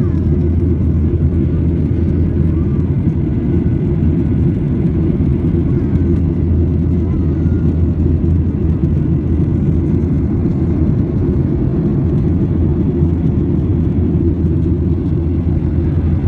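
Steady low rumble of a jet airliner's engines and airflow in flight, heard inside the passenger cabin.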